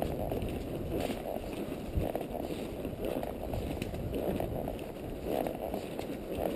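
Horse walking along a dirt trail, heard from the saddle through a chest-mounted camera: a steady low rumble of movement and footfalls that swells softly about once a second.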